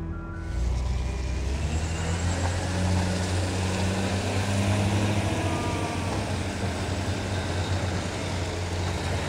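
Diesel dump truck driving past close by, its engine rumbling under tyre and road noise. The sound starts suddenly about half a second in.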